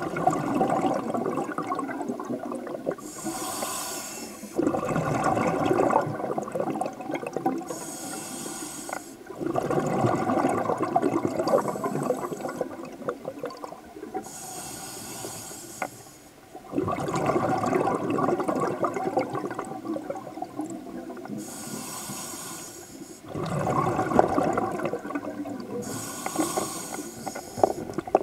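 Scuba diver breathing through a regulator underwater: five short hisses of inhaled air, each followed by a longer gurgle of exhaled bubbles.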